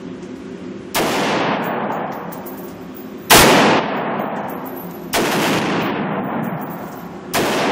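AR-15 rifle with an M4 barrel fired in slow semi-automatic, four single shots about two seconds apart, the second the loudest. Each shot rings on in a long echo off the walls of the indoor range.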